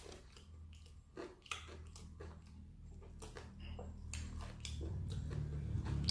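Close-up chewing and crunching of crispy fried chicken skin, a scatter of short sharp crunches and mouth clicks, with a low hum underneath that grows louder near the end.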